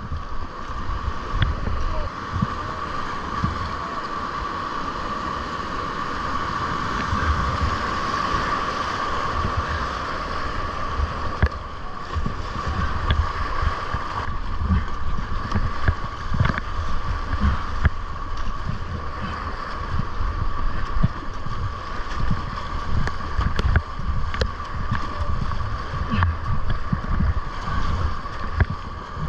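Whitewater rapids rushing steadily, with wind rumbling on the microphone.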